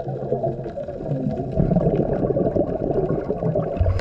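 Muffled underwater rumble and gurgling heard through a scuba diver's camera housing, with the diver's exhaled regulator bubbles.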